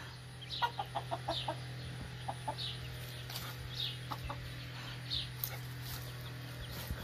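Broody hen clucking in a quick run of short notes about a second in, then a few scattered clucks. Through it, a high, falling chirp repeats about once a second.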